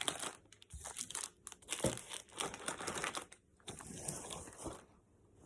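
Plastic candy wrappers and packaging crinkling and rustling in irregular bursts as candy is handled and pushed into an Easter basket.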